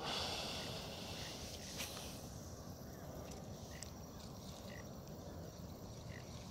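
Quiet outdoor ambience with a low steady hiss. A brief soft hiss comes in the first second, and a few faint short chirps follow later.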